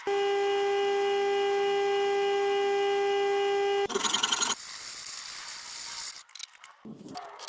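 An electric power tool motor runs at a steady, unchanging pitch and cuts off abruptly. About four seconds in there is a brief loud burst of harsh noise, followed by quieter irregular scraping and rubbing.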